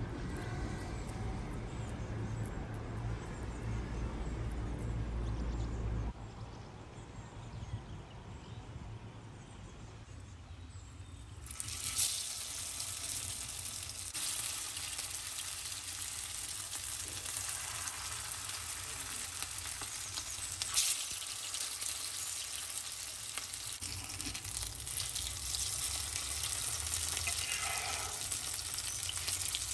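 Fish cutlet patties shallow-frying in oil in a cast-iron skillet: a steady sizzle that starts suddenly about a third of the way in, with a few light clicks. Before it there is a low rumble, then a quieter stretch.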